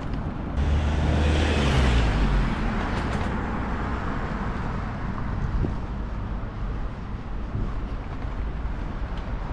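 A motor vehicle drives past close by, loudest from about half a second to three seconds in, then a steady low hum of street traffic.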